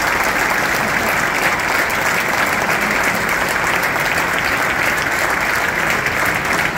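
Football stadium crowd applauding steadily: thousands of hands clapping together in a dense, even wash.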